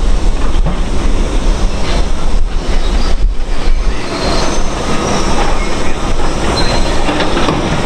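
Kobelco hydraulic excavator running under load as it swings and loads broken concrete slabs, with the concrete scraping and clattering against the steel bed of a crawler dump carrier and a few brief high metallic squeals.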